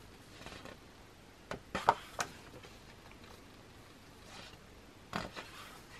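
Photobook pages being turned by hand: a few short paper rustles and flaps, with a sharper tap a little under two seconds in and another rustle near the end.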